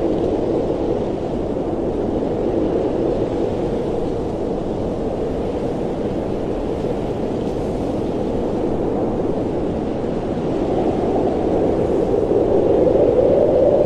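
Steady wind of a blizzard, a continuous low hollow rush that swells a little near the end.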